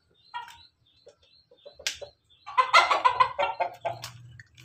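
A rooster crowing in a call of about two seconds, broken into many quick notes, starting a little after halfway in. Softer clucks and a couple of sharp clicks come before it.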